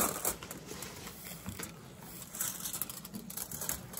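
Aluminium foil crinkling and crackling in gloved hands as it is pressed over a wig, in short irregular spells.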